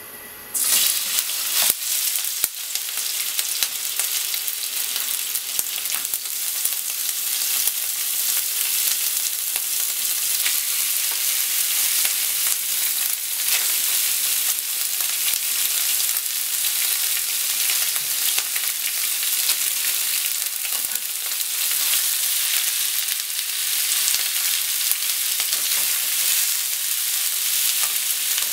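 Thinly sliced pork hitting hot oil in a frying pan and sizzling. The sizzle starts suddenly about half a second in, loudest as the meat goes in, then settles into a steady frying hiss with scattered crackles of spattering oil.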